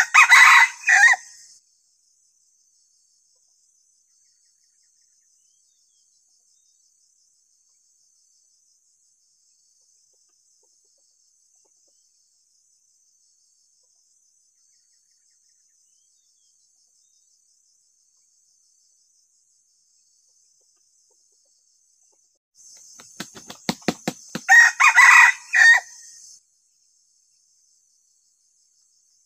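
Young decoy junglefowl rooster (ayam pikat) crowing twice, a crow of the kind used to provoke and lure wild red junglefowl. The first crow falls at the very start; the second comes about 24 seconds in, just after a quick run of soft thumps. A thin, steady high insect buzz runs underneath.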